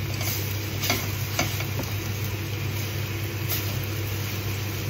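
Finely chopped onions and cumin seeds sizzling in olive oil in a stainless steel pot while a wooden spoon stirs them, knocking and scraping against the pot a few times. A steady low hum runs underneath.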